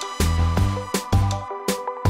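Background electronic music with a steady beat and deep bass.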